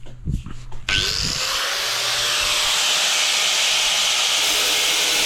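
Angle grinder switched on about a second in, its whine rising as the disc spins up, then running steadily. A few light knocks come before it starts.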